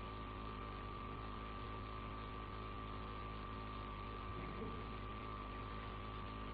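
Steady, faint electrical hum and hiss of the recording, with a thin high tone running through it and no speech.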